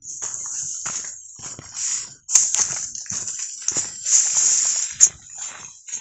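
Footsteps crunching on a forest hill trail while walking downhill, at an uneven pace, with a loud rustling hiss over them. Two sharp clicks stand out, a little past two seconds in and about five seconds in.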